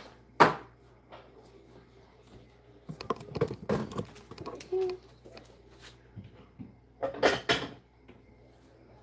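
Kitchen items knocked and clattered as they are set down and moved on a countertop: a sharp knock about half a second in, scattered small clatters in the middle, and a louder double clatter near the end.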